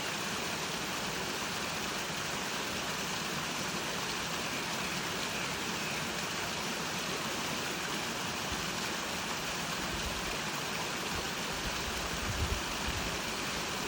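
Steady rushing of a stream or small waterfall, an even hiss with no pauses, with a brief low rumble near the end.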